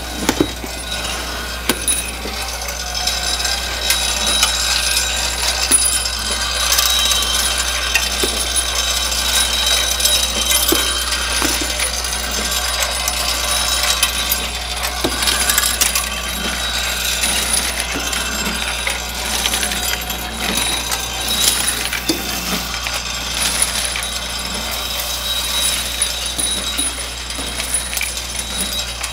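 Bolt feeder with a reciprocating ram elevator running: steel bolts clink and rattle continuously against the steel hopper and ram plates, over a steady low hum from the drive.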